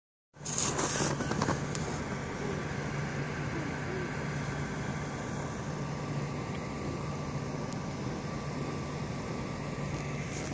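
Steady low hum over a constant background noise, like a ventilation unit or distant traffic. A few sharp clicks and knocks come in the first second and a half.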